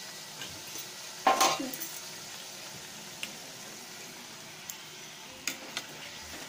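Bhatura deep-frying in a steel kadai of hot oil, with a steady sizzle. About a second in, a metal spatula strikes the pan with one loud ringing clang, followed by a few lighter taps of metal on metal as the bread is worked in the oil.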